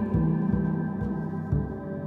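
Ambient music of held, ringing tones like gongs or singing bowls, over a low pulse about twice a second that stops after about one and a half seconds.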